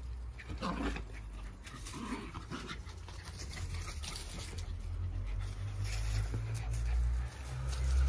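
Jack Russell terriers play-fighting, making short dog sounds a few times, about a second in and again around two seconds in, over a steady low rumble.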